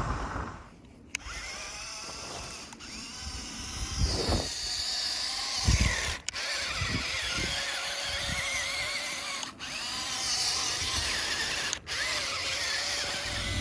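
A whining machine or motor whose pitch wavers up and down, broken by several short gaps, with a few low thuds in the middle.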